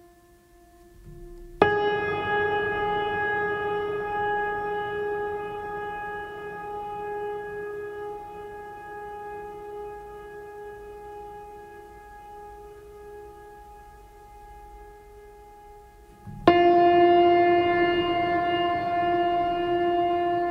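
Background music: long held notes with a horn-like tone. The first starts abruptly about a second and a half in and slowly fades; a second, higher note comes in suddenly near the end.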